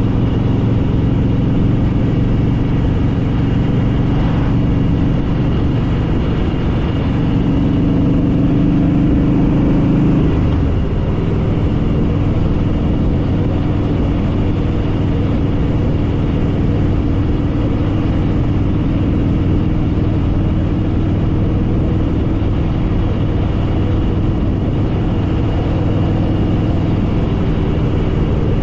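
Harley-Davidson Fat Boy Lo's V-twin engine running steadily under way. Its pitch climbs slightly, then drops suddenly about ten seconds in as the engine eases off or changes gear, and holds steady after that.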